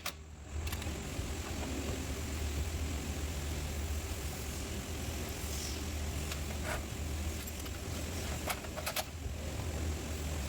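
A steady low motor hum with a few light clicks about two-thirds of the way through.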